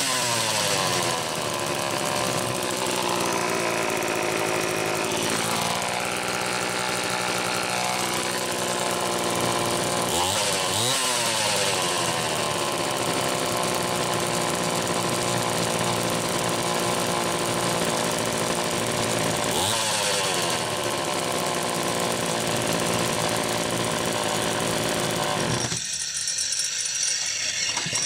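Homelite 150 two-stroke chainsaw engine running on its test run after a starter repair, revved up and let back down to idle several times.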